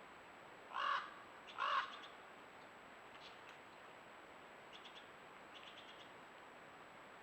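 Two short, harsh animal calls about a second apart, then a few faint chirps over a low steady hiss.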